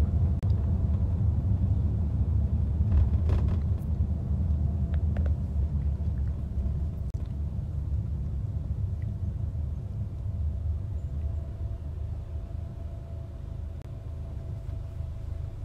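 Steady low rumble of a car driving, heard from inside the cabin. It eases off slightly toward the end.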